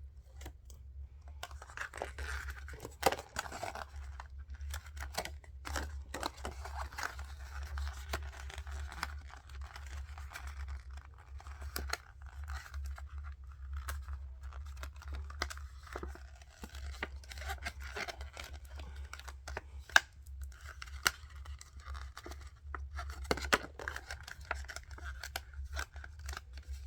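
Plastic bag and paper being handled and pulled apart: continuous crinkling and rustling with many sharp clicks and short rips, over a steady low hum.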